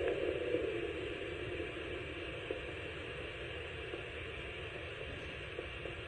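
Steady static hiss from the speaker of an ultrasonic Doppler flow detector with its probe on a parrot's leg, the louder whooshing fading away over the first couple of seconds, with a few faint ticks.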